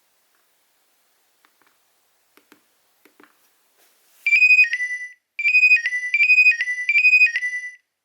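A few faint clicks, then from about four seconds in a Nokia 2300 mobile phone plays a ringtone through its small speaker: a short phrase of high electronic notes, a brief pause, then a quick repeating figure that stops suddenly near the end.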